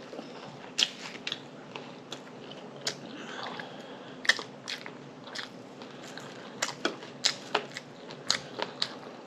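A person chewing crunchy food close to the microphone: wet mouth sounds with irregular crisp crunches and clicks, one to three a second.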